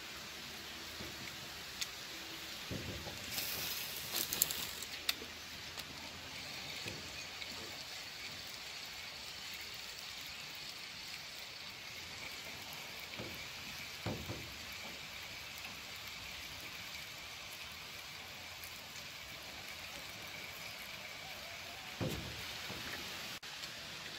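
Steady wash of water and wind around a small boat, with a few light knocks and a brief rustling burst a few seconds in.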